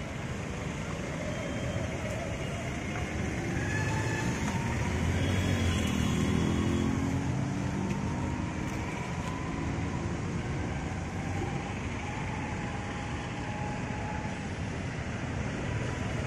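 Road traffic: a steady rumble of passing vehicles, swelling as one vehicle goes by about five to seven seconds in.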